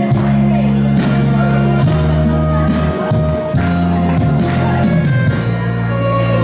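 Recorded backing track of a Korean trot song playing through the PA during an instrumental passage, with bass, melody and drums.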